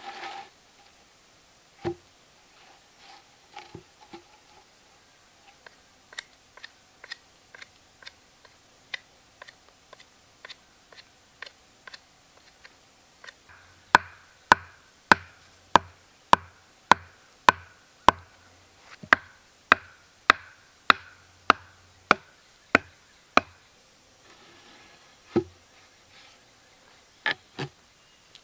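A wooden mallet made from a log knocking wooden stakes into the ground. Lighter, evenly spaced taps come first, then about halfway in a run of some sixteen hard knocks, a little under two a second, before it stops; two more knocks come near the end.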